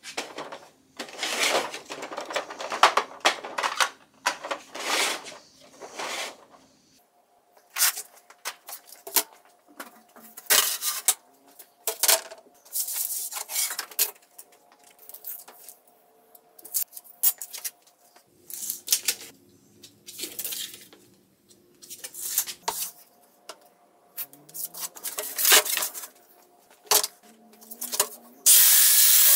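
Clattering and knocking as a plastic multi-drawer parts organizer and sheets of plywood are handled on a metal-topped table, in bursts with pauses between. Near the end a circular saw starts cutting plywood with a loud, steady noise.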